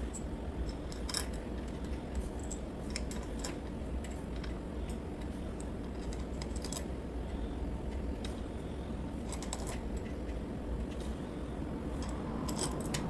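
Scattered light metallic clicks and clinks of pump parts and tools being handled while a pressure washer pump is put back together, a dozen or so at uneven intervals. A steady low hum runs underneath.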